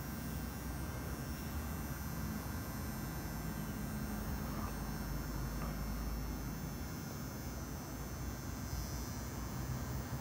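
Permanent-makeup tattoo machine pen running with a steady low hum as it works eyeliner pigment into the upper lash line.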